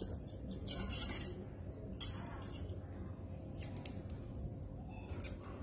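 A large brass flower vase picked up and handled, giving a few light metal clinks and knocks spread through the moment.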